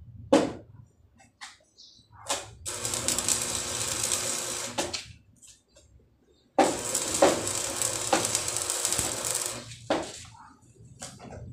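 Stick-welding arc on steel pipe crackling in two runs of about two and three seconds, with several short spits where the arc is struck or breaks off.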